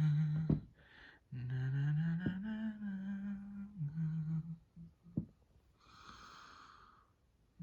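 A voice humming a few long held notes with no words, the pitch stepping up and back down, followed near the end by a soft breathy exhale.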